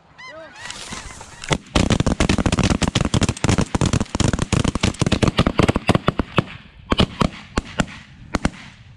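A volley of shotgun fire from several hunters: dozens of shots in quick, overlapping succession starting about a second and a half in, thinning to a few scattered shots near the end. Snow geese calling at the start.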